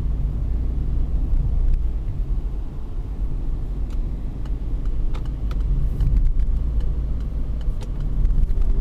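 Low, steady rumble of engine and road heard inside the cabin of a 2021 Peugeot 208 with a 1.6 engine and automatic gearbox, driving and picking up speed; the cabin is quiet and well insulated.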